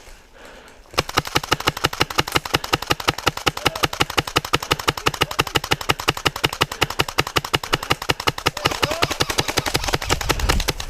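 HPA-powered airsoft HK416 rifle firing full-auto in one long unbroken burst, a rapid even stream of shots starting about a second in.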